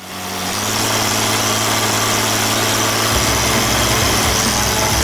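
Old farm tractor's engine running steadily while pulling a harrow to cover seed, with a deeper uneven rumble joining about three seconds in.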